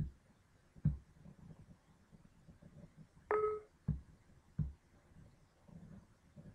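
Four mouse clicks, and about three seconds in a short Windows system chime of a few steady tones lasting about half a second, sounding as a User Account Control prompt opens.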